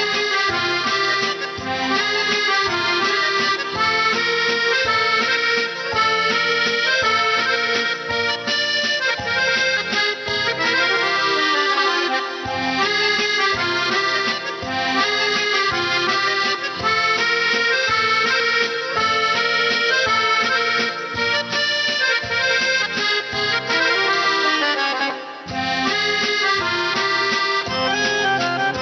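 Instrumental music with a steady beat and a busy melody, without singing.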